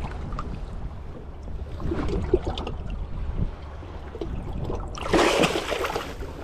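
Wind rumbling on the microphone over lapping water, then about five seconds in a loud splash of about a second as a released striped bass kicks free of the hand and swims off at the surface.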